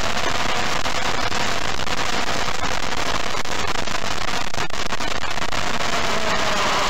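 DJI Phantom quadcopter's motors and propellers in flight, picked up by its onboard camera: a loud, steady rushing noise with a dense crackle all through it.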